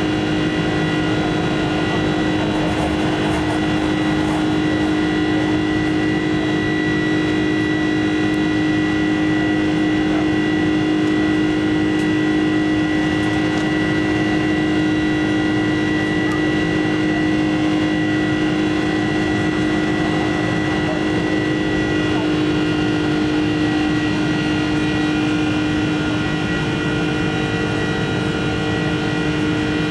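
Boeing 747-400's turbofan engines at climb power, heard inside the cabin over the wing. It is a steady drone with several held tones: a strong low hum and a higher whine that fades about two-thirds of the way through.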